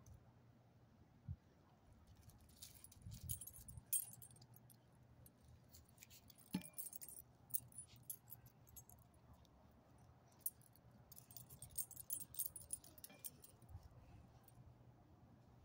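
Faint, light metallic jingling of small loose metal pieces in three short spells, about three, six and eleven seconds in, over a low steady hum.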